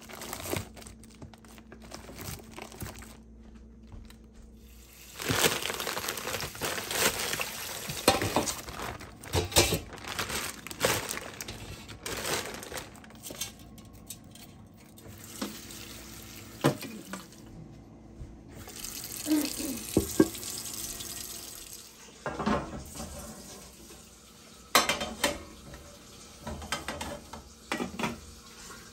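Kitchen work sounds: water running from a tap for several seconds, then scattered knocks and clinks of a stainless steel steamer pot, its tray and its lid.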